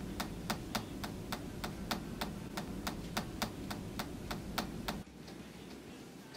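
A pencil tapped rapidly and steadily on a desk, about four sharp taps a second, over a low hum. About five seconds in, the hum drops away and the taps turn fainter and sparser.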